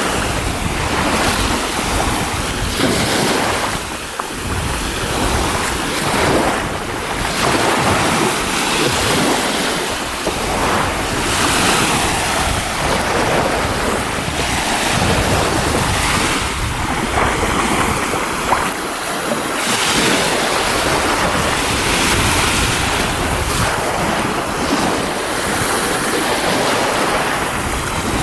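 Baltic Sea surf washing onto the shore in a steady, swelling rush, with wind buffeting the microphone.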